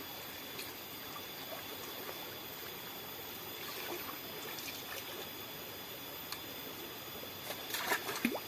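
Water trickling steadily, with a few short splashes near the end.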